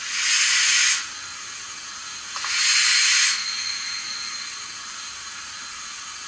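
Recorded steam sound from a Zimo sound decoder's small speaker in a Bachmann OO gauge Southern H2 Atlantic model locomotive: two bursts of steam hiss, each about a second long, one at the start and one about two and a half seconds in, over a steady fainter hiss.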